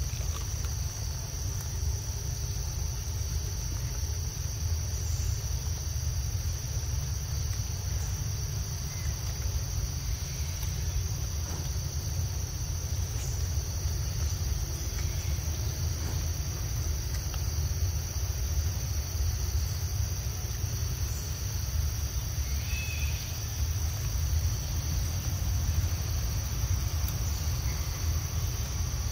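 Steady insect chorus, an even high-pitched drone, over a constant low rumble.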